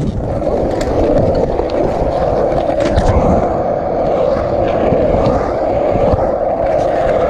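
Skateboard wheels rolling steadily over concrete: a continuous rumble with a few light clicks.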